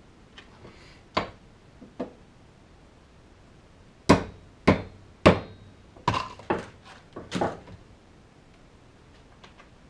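Hammer tapping new wear buttons into a snowmobile primary clutch's movable sheave to get them started. Two light taps come early, then a run of about six harder strikes roughly half a second apart, one leaving a brief metallic ring.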